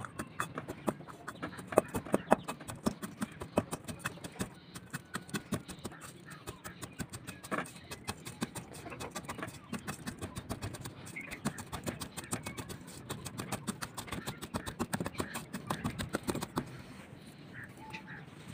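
A round grinding stone pounding and crushing garlic cloves in a stainless steel bowl: quick, repeated knocks of stone on steel with crunching, several a second, that stop near the end.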